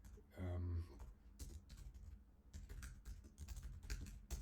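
Computer keyboard typing: irregular keystroke clicks, with a short hummed voice sound about half a second in.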